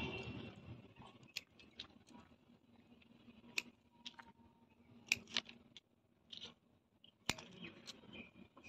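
Scissors snipping moss rose stems: a scattering of faint, sharp snips and clicks at irregular intervals.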